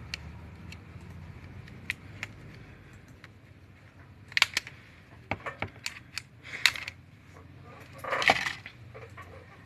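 Scattered sharp clicks and small clattering rattles of hand tools and small parts being handled while a mobile phone is taken apart. A louder burst of clicks comes in the middle and a longer scraping clatter comes near the end, over a steady low hum.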